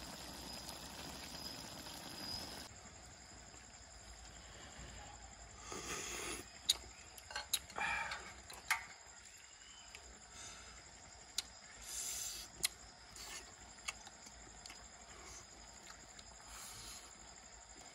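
A metal spoon clinking several times against a ceramic bowl, with short scraping sounds as stew is scooped out.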